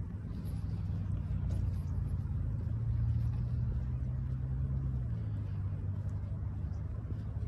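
Low engine rumble of an unseen motor vehicle. It swells for the first few seconds, then drops in pitch about five seconds in and eases off.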